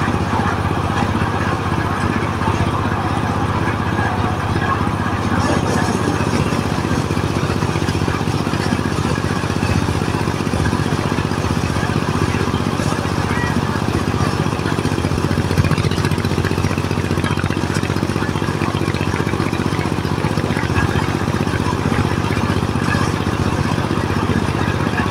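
Diesel-powered mobile corn sheller running steadily, its engine humming under the dense rattle of cobs being shelled in the drum.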